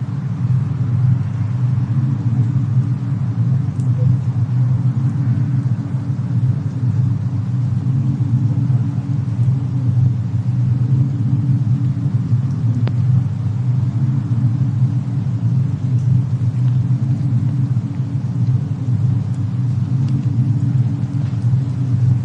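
Fireplace and snowstorm ambience: a steady low rumble with a faint hiss, broken by a few soft fire crackles, one sharper pop about 13 seconds in.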